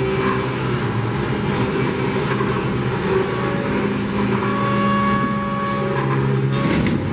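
Coal hopper cars rolling slowly past under a loadout tower: a steady rumble of wheels on rail with a constant mechanical hum, and a short clatter about six and a half seconds in.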